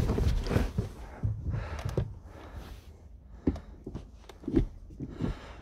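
Six-speed manual gear lever of a Mk1 Seat Leon, fitted with a DIY short-shift selector, being worked through the gears: several short clunks about half a second apart in the second half, after a couple of seconds of rustling and handling noise.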